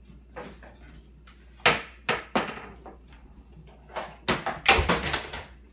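A series of sharp knocks and clunks from things being handled in a kitchen: three knocks a couple of seconds in, then a louder run of clatter with a dull thud a little past the middle.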